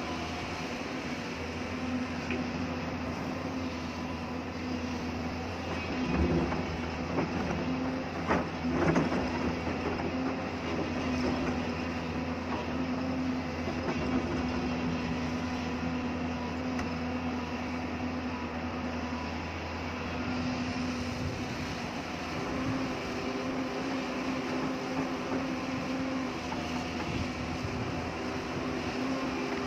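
Hyundai excavator's diesel engine running steadily with a low hum, with a few louder knocks and scrapes about six to nine seconds in as it works hard rock.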